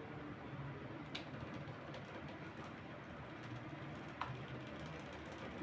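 Faint steady background rumble with two small clicks, one about a second in and one about four seconds in.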